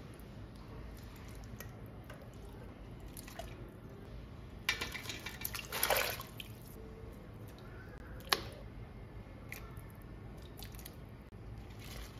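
Raw meat and bones tipped from a wire-mesh strainer into a stainless steel stockpot of water, splashing for about two seconds in the middle. A single sharp click follows a couple of seconds later.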